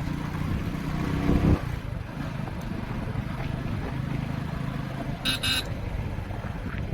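Motorcycle engine running steadily while riding. About five seconds in there is a short horn beep.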